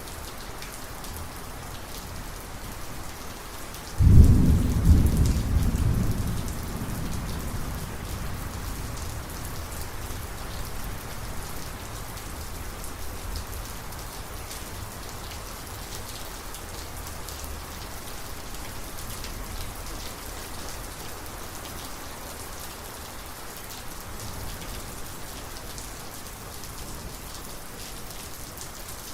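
Heavy steady rain with a sudden close thunderclap about four seconds in, a sharp crack that rolls off into low rumbling over several seconds; a fainter distant rumble follows near the end.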